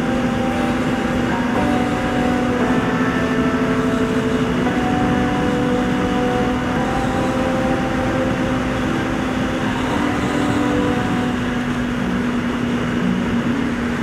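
Motorcycle engine running steadily at highway cruising speed, about 130 km/h, under a constant rush of wind noise.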